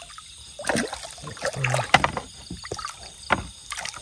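Water splashing and sloshing in irregular bursts, with a few sharp knocks.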